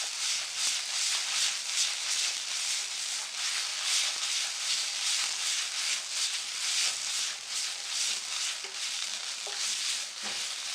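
Spiced onion-tomato masala paste sizzling steadily in hot mustard oil in a kadhai while it is stirred.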